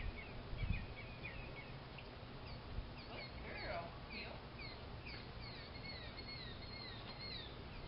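Birds chirping over faint outdoor background noise: many short repeated chirps, getting busier from about halfway through.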